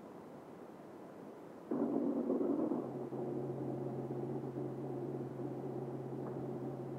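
Airliner engine drone heard from the cabin in flight: faint hiss, then a sudden louder rush about two seconds in that settles into a steady low hum.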